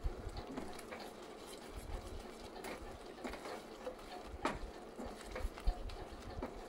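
Thick tamarind paste simmering in a stainless steel pan, with irregular soft pops and plops from bursting bubbles and a wooden spatula stirring and scraping through it; the paste has cooked down to a thick consistency.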